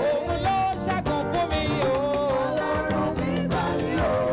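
Live gospel praise music from a band: a wavering sung melody over a full instrumental backing with steady drum and percussion strokes.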